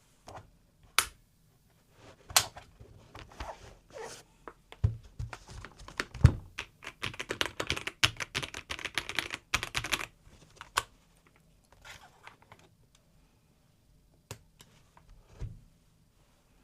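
Typing on a Logitech K98M mechanical keyboard with Marble switches. Scattered keystrokes, a couple of deeper, heavier strokes around five and six seconds in (the loudest about six seconds in), then a fast run of typing from about seven to ten seconds in, then a few single key presses.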